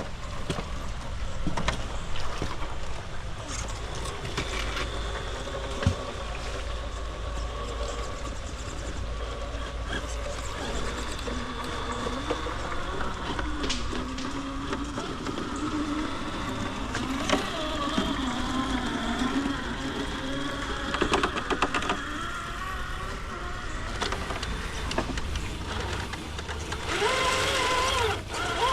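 Radio-controlled rock crawler's electric motor and gearbox whining, the pitch rising and falling as the throttle is worked, with scattered clicks and knocks.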